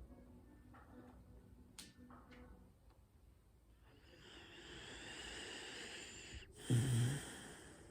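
Dog snoring in its sleep: a long breathy hiss of breath swells for a few seconds, then a short, loud, low snore comes near the end.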